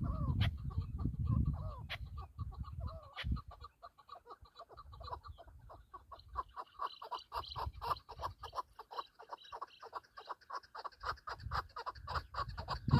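Chukar partridge calling: a few drawn-out notes at first, then a long run of short clucking notes, about five a second. Gusts of wind rumble on the microphone.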